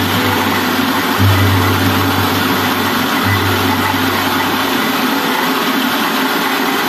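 Small electric rice milling machine running, its steady mechanical noise mixed with the hiss of rice pouring off the sieve tray. A low hum underneath swells in the middle and fades away in the later part.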